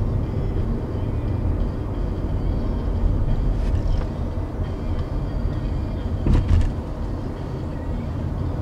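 A vehicle driving: a steady low rumble of engine and road noise, with a brief clatter about six seconds in.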